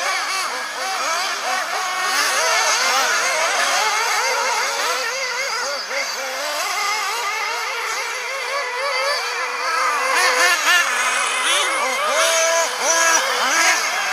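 Several radio-controlled off-road buggies racing together. Their motors rise and fall in pitch in many overlapping whines as they accelerate and brake, growing louder as cars pass close in the last few seconds.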